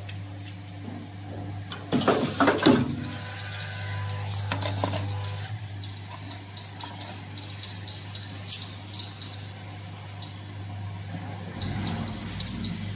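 Steady electrical hum of an automated cabinet-hinge assembly machine, with scattered metallic clinks and clicks of steel hinge parts being handled.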